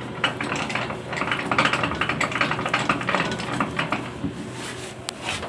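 Small metal parts of a table saw clinking and rattling as they are handled and adjusted: a dense run of light clicks and knocks.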